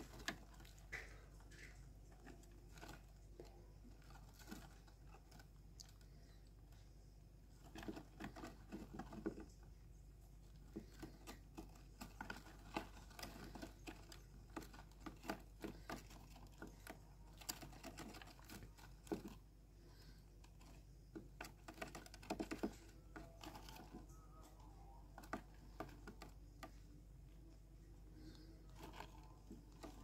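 Budgerigar chicks and hen shifting about in a wooden nest box: faint, irregular light clicks and scratches of claws and beaks on the wood and wood shavings, coming in small clusters.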